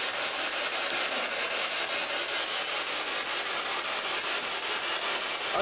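Steady hiss of radio static from a spirit box, played through a small handheld speaker.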